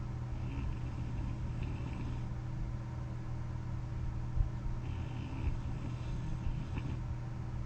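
A sleeping person wearing a CPAP mask breathes with light snoring, two slow breaths about four seconds apart, over a steady low hum. There is a short knock about four and a half seconds in.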